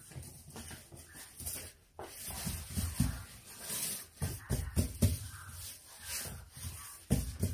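Plastic cling film being pressed and smoothed by hand over oiled dough ropes on a wooden board: irregular rustling and rubbing, with a few soft knocks of hands on the board.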